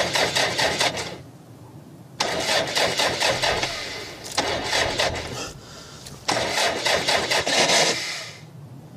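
Ford Focus starter motor cranking the engine three times in a row, each try a couple of seconds long with pauses between, and the engine never catches: the car won't start.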